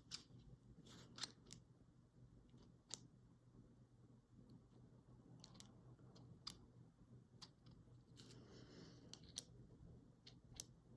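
Near silence with faint, scattered clicks and taps from handling the parts of a sonic screwdriver replica.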